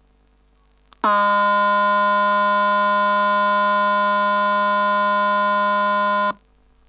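Simulated speaker output of a 555-timer square-wave oscillator in a metal detector circuit: a steady, buzzy tone that starts abruptly about a second in, holds for about five seconds at one pitch, and cuts off sharply. It is the detector's tone with the coil's inductance changed, as when a metal piece comes near the coil.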